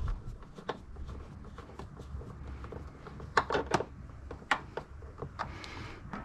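Scattered light clicks and taps of plastic on plastic, a hand fitting screws into the plastic air filter housing with a screwdriver, over a low steady rumble. The clicks come close together about halfway through.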